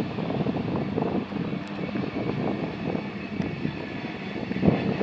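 Freight train tank cars and gondolas rolling past on the track. It is a steady noise of steel wheels on rail with dense, irregular clatter, and one louder knock near the end.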